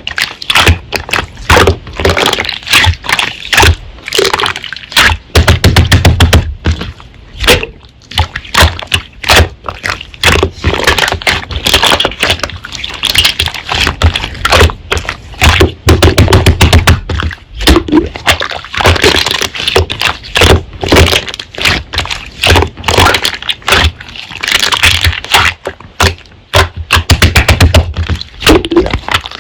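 Slime being squeezed, poked and folded by hand: dense sticky crackles and pops, with a few heavier, deeper squelching presses.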